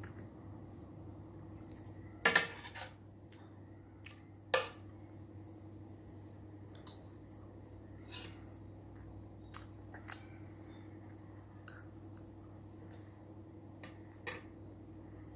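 Eating utensils clinking against a dish every second or two, the two loudest strikes coming early with a brief ring, over a steady low hum.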